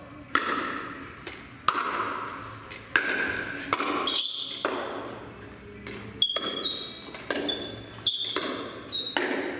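Pickleball rally: a hard plastic ball popping off paddles and bouncing on the hard floor about once a second, each hit ringing in the echoing hall, with short high squeaks from shoes on the floor.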